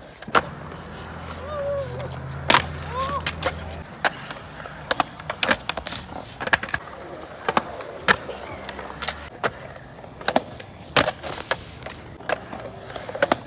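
Skateboard wheels rolling on smooth concrete, with many sharp clacks and slaps of the board hitting the ground as it lands, or tumbles away when the rider falls.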